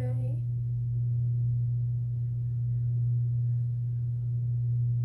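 Steady low electrical hum, one unchanging tone typical of mains hum picked up in the recording.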